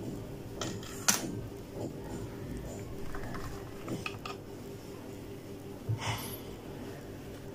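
Clear plastic blister packaging handled while the small plastic RGB controller box and its wires are lifted out: a sharp plastic click about a second in, lighter clicks and crinkles later, over a steady low hum.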